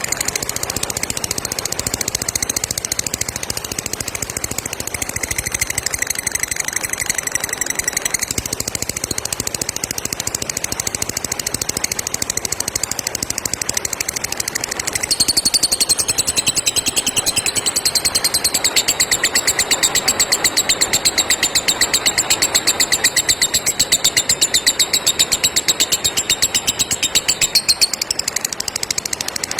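Lovebird ngekek: a long, rapid rattling trill of sharp high chirps that runs without a break and grows louder about halfway through.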